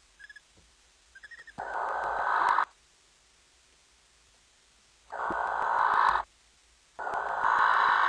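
Barn owl giving three harsh, hissing screeches of about a second each, with a few short quick calls before the first.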